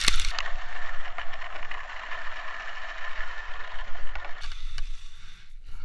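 Steady, muffled rush of snow and wind on a skier's head-mounted camera as the skier falls and slides through the snow, with a few faint scrapes and knocks. It turns quieter about four and a half seconds in.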